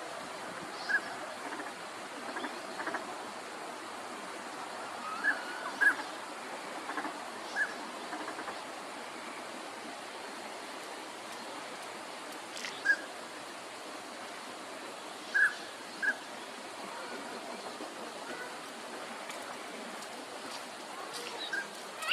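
Northern pintails giving short whistled calls, single or in quick pairs, scattered at irregular intervals over a steady background hiss.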